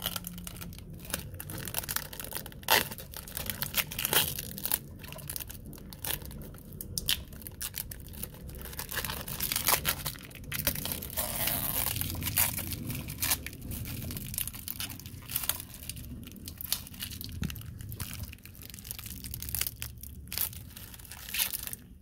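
Thin clear protective plastic film being peeled off a guitar's pickguard and pickup covers, crinkling and crackling in a steady stream of small irregular snaps.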